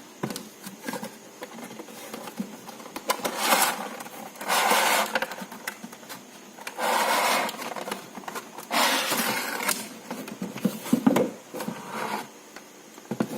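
Cardboard box and plastic packaging being opened by hand: scraping and rustling with small clicks, and louder noisy bursts of about a second each, around four, seven and nine seconds in.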